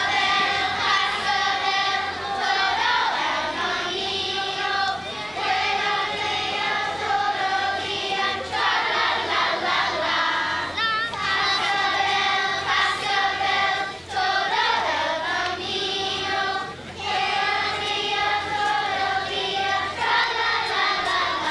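Large choir of children and teenagers singing, holding long notes in phrases of a few seconds with brief breaks between them.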